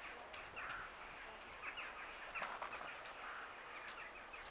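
A large flock of crows calling as it flies over: many short, overlapping caws that drop in pitch.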